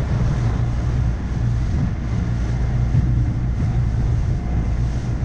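Boat engine running at a steady speed under way, a constant low hum with a rush of water and wind over it.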